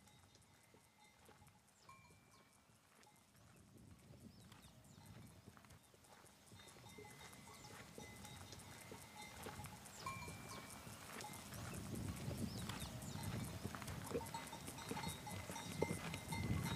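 Livestock with neck bells approaching: many small bells clinking, getting steadily louder.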